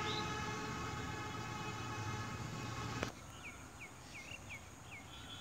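A steady droning hum with many overtones, cut off abruptly about three seconds in. After that, quieter outdoor background with a bird giving a quick series of short chirps, about three a second.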